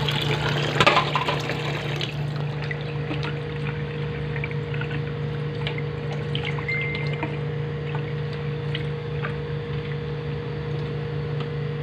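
Tap water pouring into a steel pot of rice for about the first two seconds, then the rice being swished through the water with a spoon, with scattered small ticks of the spoon on the pot. A steady low hum runs underneath.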